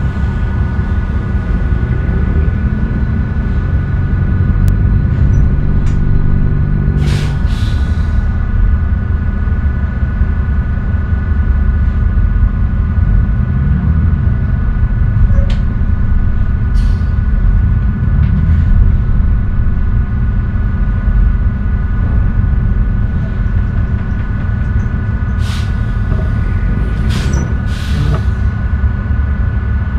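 Tugboat's diesel engine running with a steady heavy rumble and a steady whine. About seven seconds in the engine note drops, with a short hiss. A few more brief hisses come later, several of them near the end.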